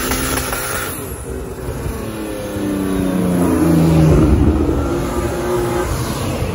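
BMW E36 coupe accelerating hard past at close range, its engine note climbing in pitch and loudest as it goes by about four seconds in, then easing away.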